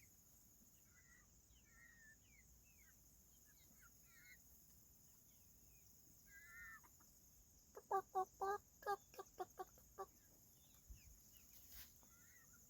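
Backyard chickens clucking. Soft scattered chirping calls are followed, about eight seconds in, by a quick run of about eight loud clucks.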